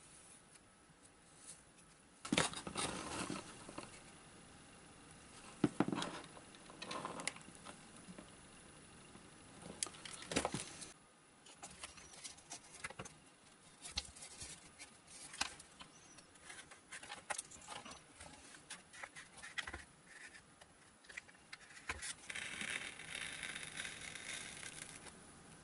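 Hands working a foam model-plane fuselage: scattered rustles, knocks and scrapes as the foam is handled and a small servo is pushed into it. Near the end come about three seconds of steady scraping as a hobby knife cuts a slot in the foam.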